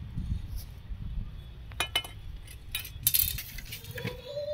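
Handling sounds while a plant is lifted out of its plastic packet: a low rumble of the phone being handled, with a few sharp clicks and crinkles about two and three seconds in.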